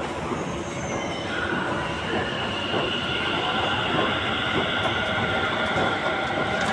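Delhi Metro train at an underground platform: a steady high whine over a dense rumble of train noise, growing slightly louder.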